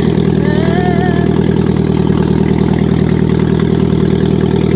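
Old small tractor's engine chugging steadily as it drives along, with an even, fast pulse and no change in speed.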